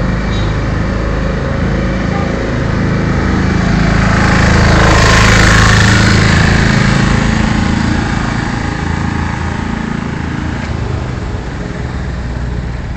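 A car passing close by on the road, its engine and tyre noise swelling to a peak about five seconds in and then fading away, over steady traffic noise.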